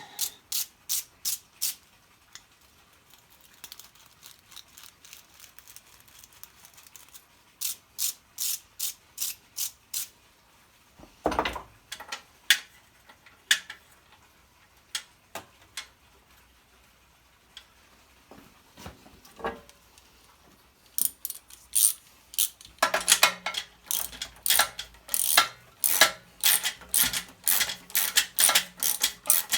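Ratchet wrench clicking in short runs of quick, even clicks as the spark plug is screwed back into the generator engine, the clicking getting louder and more continuous in the last third.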